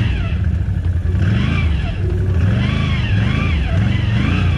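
ATV engine revving up and down, its pitch rising and falling several times in a row.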